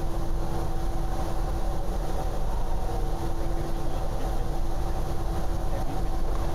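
Steady low rumble of idling engines with a constant hum over it.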